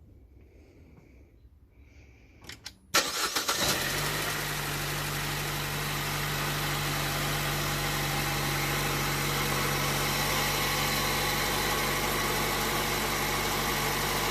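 Chevy Cruze 1.4-litre turbo four-cylinder engine cranking briefly and starting about three seconds in, then idling steadily, on its first start with a newly installed Specter cold air intake.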